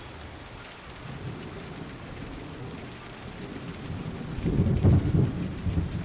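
Heavy rain falling, with a low rumble that grows louder about four and a half seconds in.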